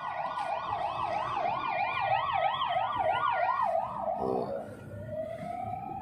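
Ambulance siren in a fast up-and-down yelp, about three sweeps a second. About four seconds in the yelp breaks off and gives way to a slow rising wail.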